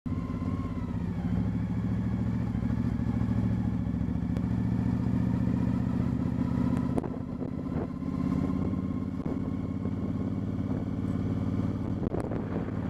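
Motorcycle engine running steadily as the bike is ridden, heard from on the bike. The engine note drops suddenly about seven seconds in, then carries on quieter.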